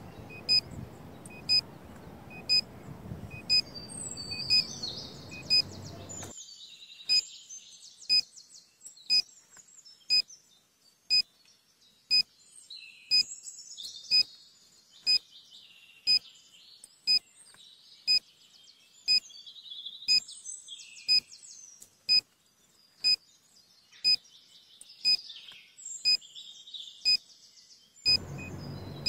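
Short, loud electronic beep about once a second, like a countdown timer ticking, with birds chirping and tweeting over it. The low outdoor background drops away about six seconds in and comes back near the end.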